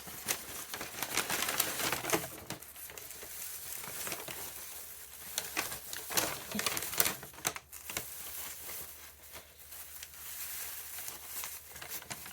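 Packaging being handled and unwrapped from around a potted orchid: irregular crinkling and rustling with many sharp clicks and crackles.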